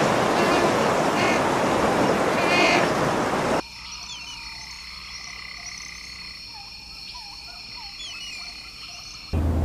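A crowded Adélie penguin colony calling over a loud noisy hubbub, repeated cries about once a second. About three and a half seconds in it cuts sharply to a much quieter background of steady high-pitched trilling with scattered short bird chirps.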